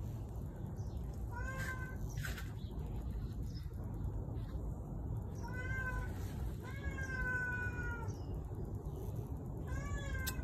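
Stray cat meowing about four times, the third meow drawn out longer than the others, over a steady low background rumble.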